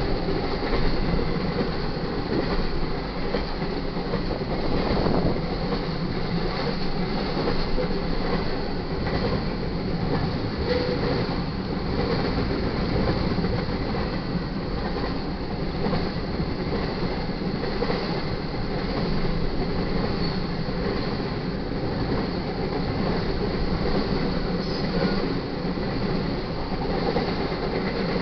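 Intermodal freight train's cars, loaded with highway trailers and stacked containers, rolling steadily past at speed, a continuous rumble of steel wheels on the rails.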